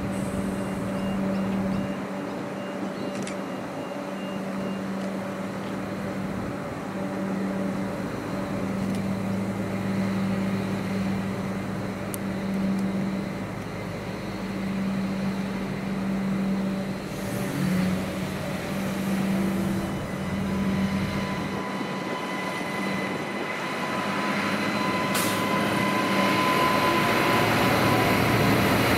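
3000 class diesel railcar engines idling with a steady hum, then getting louder as the set pulls away and passes close by near the end.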